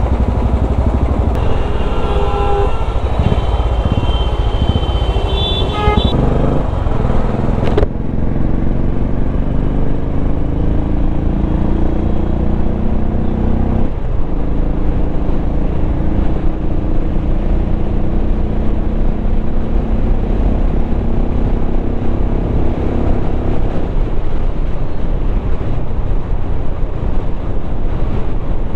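Royal Enfield Classic 350 single-cylinder engine running under a heavy low rumble while the bike is ridden, with horn-like tones during the first few seconds. After an abrupt change about eight seconds in, the engine note climbs slowly, drops at a gear change about halfway through, and climbs again.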